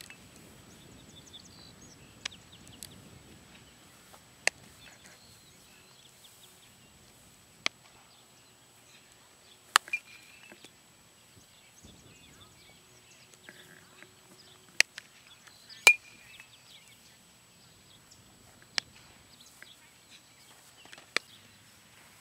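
Sharp cracks of a baseball being hit and caught during an outfield fielding drill, about nine separate impacts a few seconds apart against quiet outdoor background, the loudest with a short ring.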